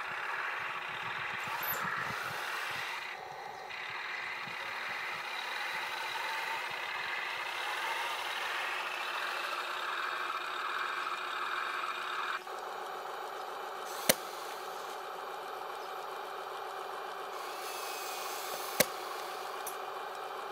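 Airsoft tank running with a steady mechanical whir, with two sharp airsoft shots about five seconds apart in the second half.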